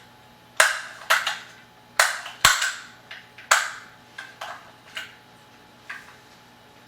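Suomi drum magazine's spring being wound up by hand, giving a string of sharp metallic clicks at uneven spacing, some ringing briefly, as the feed spring is preloaded.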